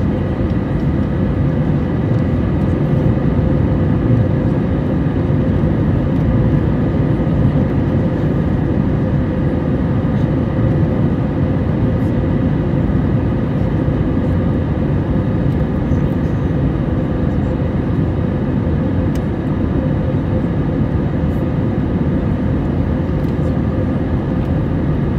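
Cabin noise of a jet airliner in flight: a steady, even roar with a faint steady tone running through it.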